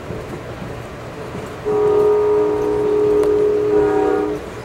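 Amtrak locomotive horn sounding one chord-toned blast of nearly three seconds, starting about a third of the way in and cutting off near the end. Beneath it is the steady rumble of the moving train.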